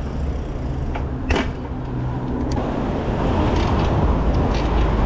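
City street traffic, with a motor vehicle's engine running close by, heard from a moving bicycle. There are two sharp clicks between one and one and a half seconds in. A rushing noise from riding grows louder after about three seconds.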